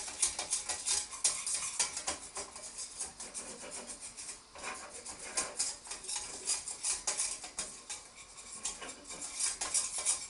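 Wire balloon whisk scraping and clinking rapidly against a small stainless steel saucepan, stirring flour into melted butter to make a roux. The whisking eases off briefly near the end.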